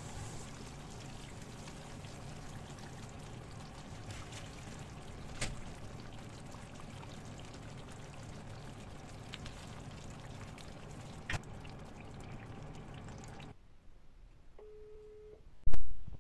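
Chopped vegetables and green chillies sizzling steadily in oil in a frying pan, with a couple of sharp clicks. The sizzle cuts off near the end, followed by a short beep and a loud thump.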